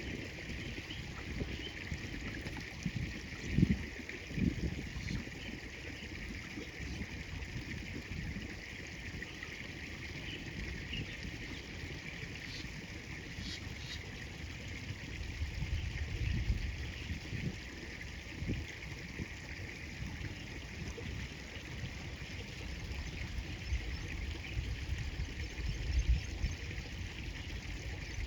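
River water flowing and trickling steadily, with a few louder low thumps about three and a half seconds in and again near the end.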